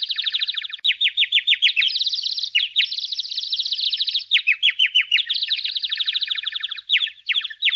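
Birds chirping in fast, unbroken trills of short downward-sweeping notes, many a second.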